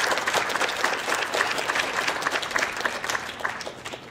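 Audience applauding, many hands clapping densely, the clapping dying away near the end.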